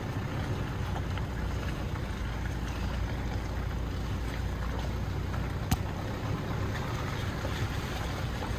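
Car driving along a forest road: steady road and wind noise with a low rumble, and one sharp click a little past halfway through.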